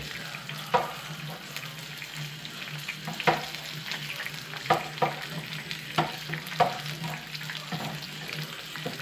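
Chicken drumsticks shallow-frying in hot oil, a steady sizzle. A metal utensil stirring a second pan gives a few sharp clicks and scrapes.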